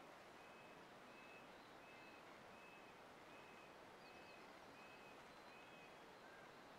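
Near silence, with a bird faintly repeating a short high whistled note about eight times, evenly spaced under a second apart, and one lower note near the end.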